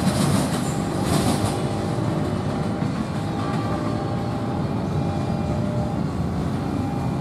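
Passenger train's wheels rolling over the rails as its last cars pass and draw away: a steady low rumble, with a hiss of wheel-on-rail noise that fades about a second and a half in.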